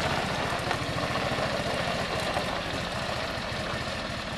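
John Deere 6x4 Gator utility vehicle's engine running steadily at low speed as it pulls away, with a fast, even low pulsing.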